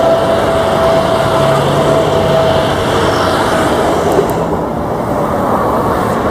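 Jet engines of an EVA Air Boeing 777-300ER, its twin GE90 turbofans running as the airliner rolls along the runway: a loud, steady roar with a steady whine that fades about halfway through.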